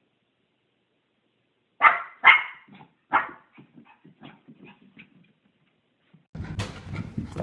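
A small puppy giving three sharp yipping barks, followed by a run of softer short bumps and small yips as it slides down carpeted stairs. Near the end a rough, noisy rustle starts.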